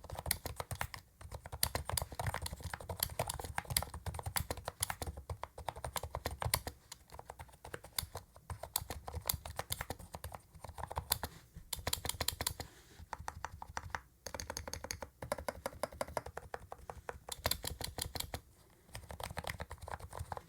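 Typing on the MageGee TS91 60% membrane keyboard: fast, continuous keystrokes with a few short pauses. The keys give soft, quiet membrane clicks, without the sharp click of mechanical switches.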